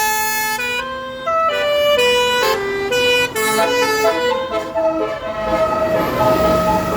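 Tour bus's basuri telolet horn playing a quick tune in stepped, many-note horn tones. Near the end it settles into one held note while traffic noise rises.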